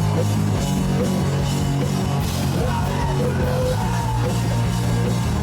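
Rock band playing live and loud, with electric guitars, bass and a drum kit. Sustained low bass notes run under guitar lines and steady drumming.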